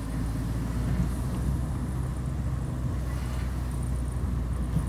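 Steady low hum of engine and tyre noise heard from inside a car's cabin while driving in city traffic.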